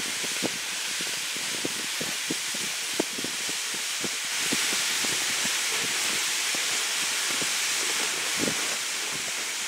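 Plastic ice-fishing sleds dragged over snow and ice, making a steady hiss, with irregular crunching footsteps in the snow.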